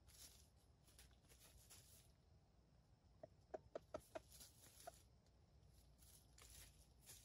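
Faint rustling of dry leaf litter from a red junglefowl rooster foraging on the ground, with a quick run of short soft taps in the middle. No crowing.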